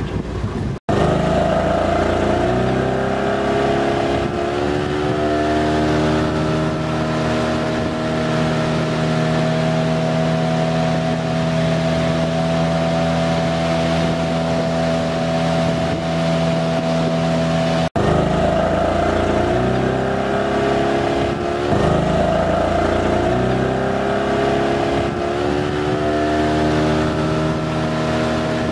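A small boat's motor running at steady cruising speed, with a stack of steady tones. Its pitch rises as it picks up speed after each of two brief gaps in the sound, about a second in and around the middle.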